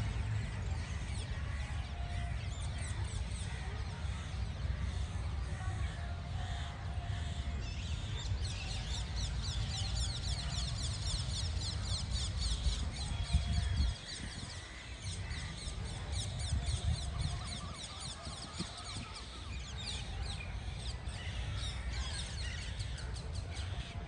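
Many birds chirping and calling at once, thickest in the middle, over a low rumble that drops off suddenly about halfway through.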